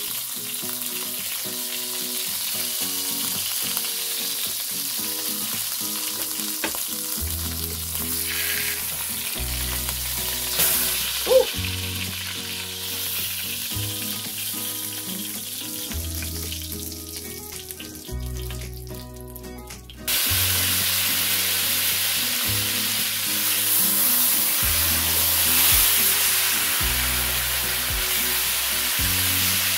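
Chicken leg quarters sizzling as they sear in hot fat in an enameled Dutch oven while being turned, a steady frying hiss. The sizzle thins out just past halfway, then comes back suddenly and louder about two-thirds of the way through, with a single sharp click a little over a third in.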